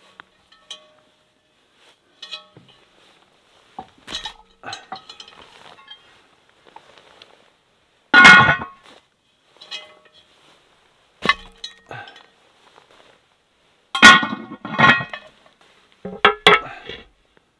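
Cast iron cookware clanking as a Dutch oven, skillets and a ridged grill pan are set down on the rocks of a fire pit. A handful of sharp metallic clanks with a short ring. The loudest comes about eight seconds in, and another cluster falls around fourteen to sixteen seconds.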